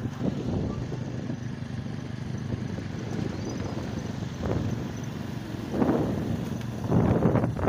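Motorbike engine running at a steady cruising speed, with wind noise on the microphone. A few short louder bursts come over it about two-thirds of the way through and again near the end.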